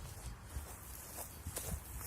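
Footsteps of a person walking, a crisp step about every half second, under a low rumble of wind buffeting the microphone.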